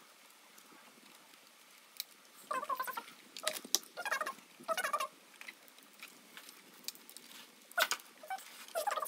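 Plastic parts of a ring light and tripod stand squeaking and clicking as they are twisted and pushed together, in several short bursts of squeaky, rapidly pulsing sound with a few sharp clicks between them.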